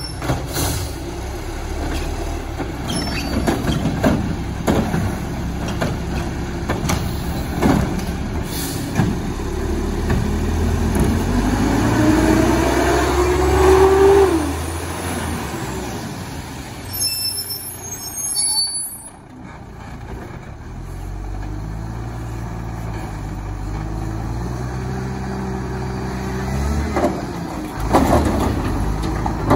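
Mack LE front-loader garbage truck's diesel engine running, with knocks and clanks of cart handling in the first several seconds. The engine rises in pitch over a few seconds about midway as the hydraulics work, and the air brakes hiss a little past halfway. Near the end the engine revs up again as the front forks raise the Curotto Can over the cab to dump it.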